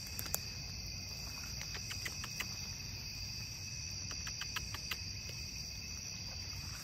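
Steady chorus of night insects: two continuous high-pitched trills at different pitches, with scattered light clicks over it.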